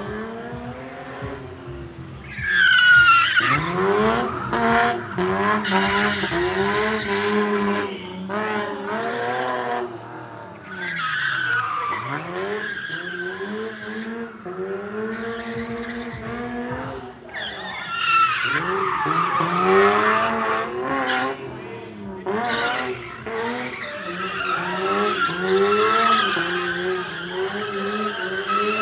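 BMW E30 drift car's engine revving hard, rising and falling in pitch again and again, with its rear tyres screeching and skidding on the asphalt as it slides.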